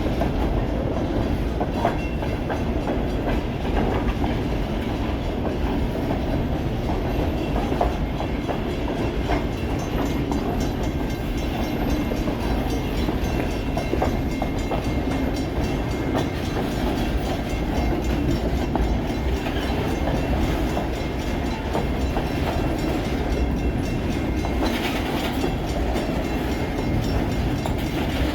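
Pan Am Railways freight train rolling past: a steady rumble of cars and wheels, with scattered clicks as the wheels cross the rail joints.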